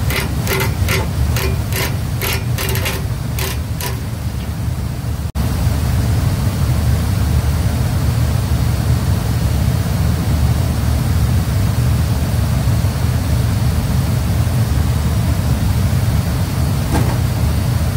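Hand ratchet clicking in quick regular strokes, about three a second, as it turns the screw of a puller on a seized fan hub. After a sudden cut, a steady low rumble with no clicks fills the rest.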